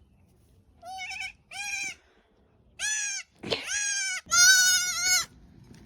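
Baby goat bleating five times in high, quavering calls, the last one the longest and loudest.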